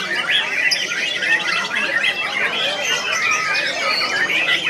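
White-rumped shama (murai batu) singing, a continuous rapid run of varied whistled phrases and pitch glides.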